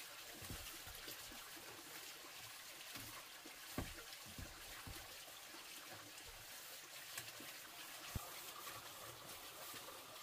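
Faint steady trickling of water, with a few light knocks, the sharpest about four and eight seconds in.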